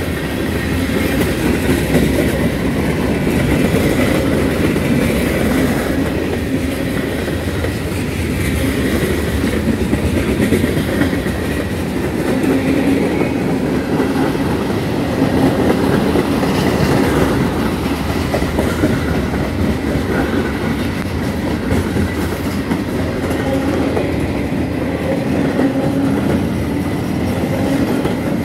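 Freight train cars passing: steel wheels rumbling on the rails and clacking over the rail joints, steady throughout.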